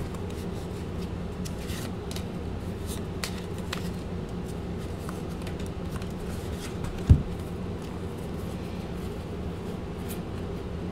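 Tarot cards being shuffled and handled by hand, with light scattered card clicks and snaps over a steady low hum. One short soft thump about seven seconds in.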